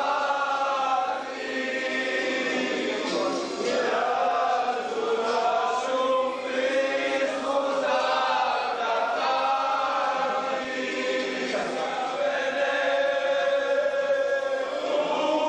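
A group of men singing together in a chant-like song with long held notes.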